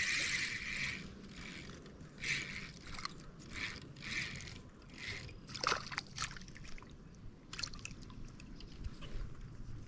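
Water sloshing and dripping: a steadier splash at the start, then short, irregular splashes and drips.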